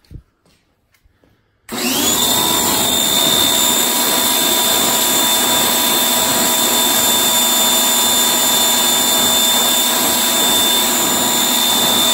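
Pressure washer kicks on suddenly about two seconds in and runs steadily: a high motor-and-pump whine over the hiss of the water jet spraying a car's side mirror.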